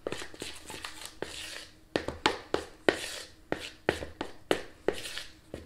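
A utensil stirring thick biscuit dough in a mixing bowl: soft scraping at first, then from about two seconds in a steady rhythm of knocks against the bowl, about three a second.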